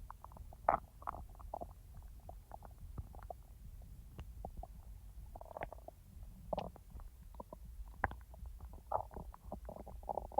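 Human stomach and intestines gurgling: an irregular run of short squelches and bubbling gurgles over a low steady rumble. The sharpest gurgles come near the start and again about eight seconds in.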